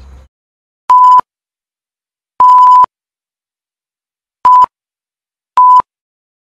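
Four loud censor bleeps, each a single steady tone of uneven length, with dead silence between them where the speech has been cut out.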